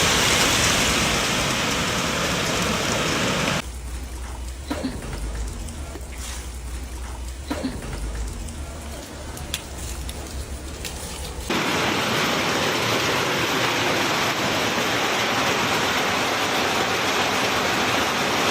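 Steady hiss of heavy rain falling on hard surfaces. About four seconds in it cuts to a quieter stretch with a low rumble and a few sharp knocks. The heavy hiss returns just past halfway.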